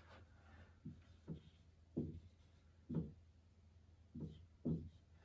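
Faint, short strokes and taps of a marker pen on a whiteboard, about six soft knocks spaced roughly a second apart.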